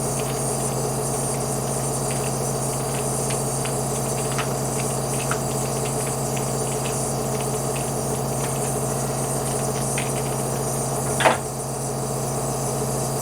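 Nebulizer's air compressor running with a steady hum, with faint irregular ticks over it. A single short, sharp knock about eleven seconds in.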